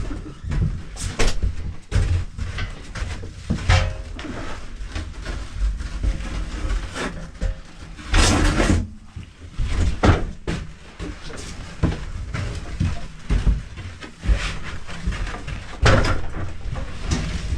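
Irregular knocks and thumps of equipment being handled and set down, over a steady low rumble.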